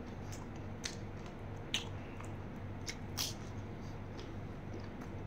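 Close-up chewing of a mouthful of raw beef koi: soft, wet mouth clicks and smacks, a handful of short ones spread through, with a faint low hum beneath.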